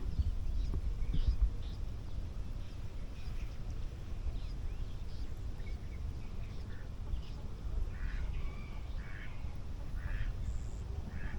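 Ducks quacking in short, scattered calls, more of them in the second half, over a steady low rumble.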